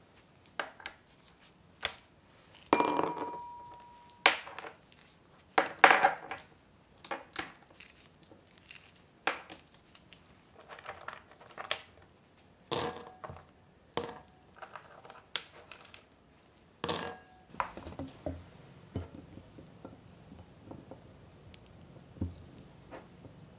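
Caramel-coated almonds and macadamia nuts clicking as they are pried apart and dropped one by one into a glass bowl, one striking the glass with a short ring about three seconds in. From about seventeen seconds on, softer scraping of a silicone spatula in a glass bowl of chocolate.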